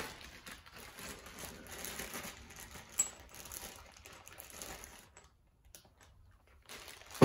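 Plastic hardware bag rustling as it is handled and opened, with small steel nuts clinking inside it and one sharp click about three seconds in; it goes quieter for the last couple of seconds, leaving only a few faint ticks.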